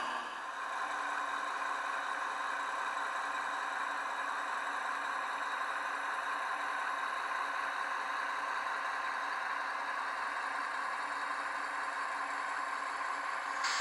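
Steady diesel engine sound from the LokSound sound decoder of an ESU H0 model V60 shunting locomotive, played through the model's small onboard speaker as it shunts slowly. The sound is thin, with no deep bass.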